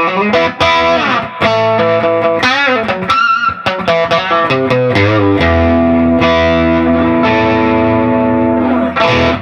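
Overdriven electric guitar through a Dr. Z MAZ18 Junior tube amp head on its high-gain setting and a 1x12 cabinet: a run of chords and notes with bends and vibrato, then a big chord left ringing for about three seconds and cut off near the end.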